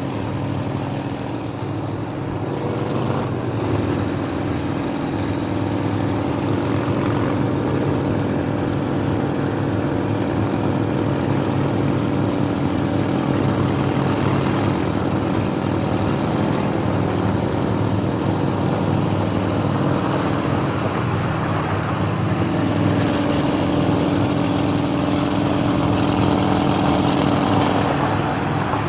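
Motorcycle engines running at steady riding speed, a continuous drone with slight shifts in pitch.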